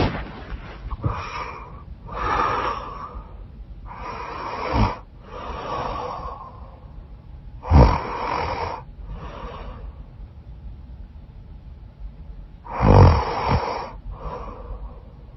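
A woman snoring through a blocked, runny nose. Her breaths come in and out in pairs every few seconds, and three of them end in a short, loud, low rattle.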